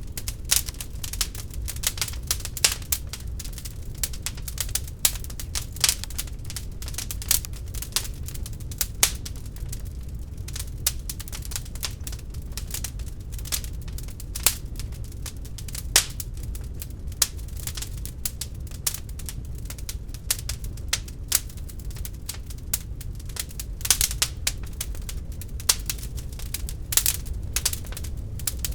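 Wood fire burning in an open fireplace: irregular sharp crackles and pops over a steady low rumble of the flames.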